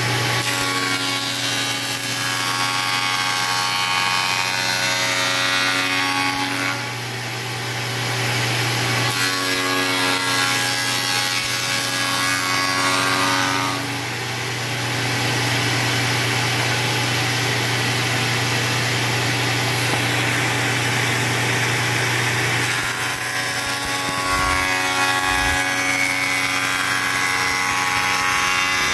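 Bench spindle moulder (table shaper) running with a steady hum while its bearing-guided cutter shapes the edges of a solid-wood door panel. The rough cutting noise comes and goes in several passes as each edge is fed past the cutter.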